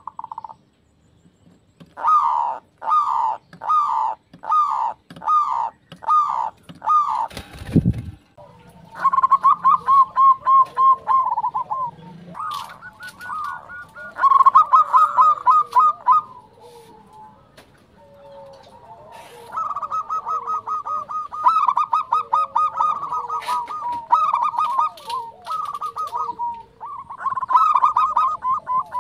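Zebra doves (perkutut) cooing: first seven separate falling coos, about one every 0.7 seconds, then long phrases of rapid, trilled cooing notes with short pauses between phrases. A low thump about eight seconds in.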